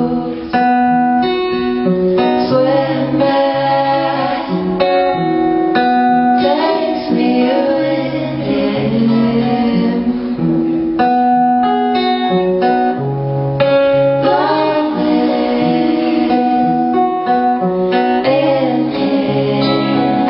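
Live song: a woman singing over acoustic guitar, with a violin playing along.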